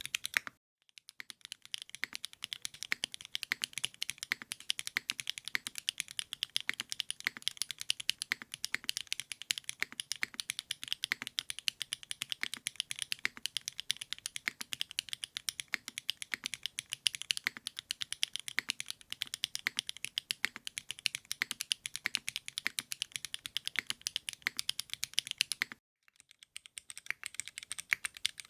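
Continuous fast typing on a Singakbd Rubrehaku custom mechanical keyboard, a dense run of keystroke clicks. It breaks off briefly just after the start and again near the end, then resumes.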